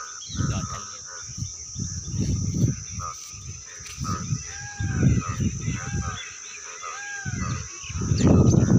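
A steady high insect drone with birds chirping and calling, over repeated loud, low rumbling bursts that grow strongest near the end.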